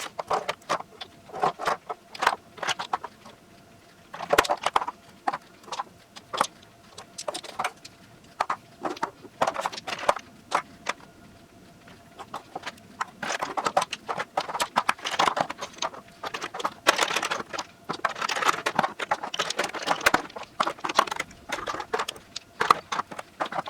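Glass nail polish bottles clicking and clinking against one another as they are handled and set down, in irregular runs of clicks that grow busier in the second half.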